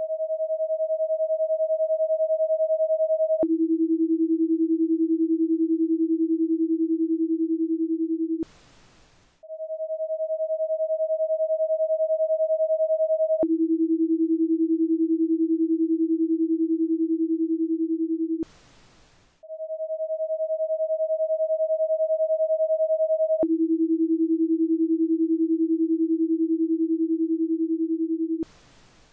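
Electronic paced-breathing cue tones in a ten-second cycle. A steady higher tone lasts about four seconds to cue the inhale, then a steady lower tone, about an octave down, lasts about five seconds to cue the exhale. A pause of about a second with only a faint hiss follows, then the higher tone returns, and the cycle runs about three times.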